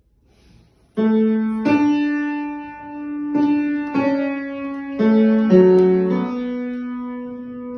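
Piano playing a slow melody over held bass notes, starting about a second in; each new note is struck clearly and rings on.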